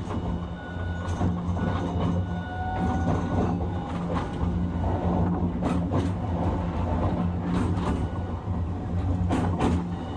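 Hiroshima Electric Railway 1000-series low-floor tram (car 1008, 'Green Mover LEX') running between stops: a steady low hum and whining tones from its Toyo Denki IGBT-VVVF inverter and traction motors, with a few pairs of sharp clicks as the wheels cross rail joints.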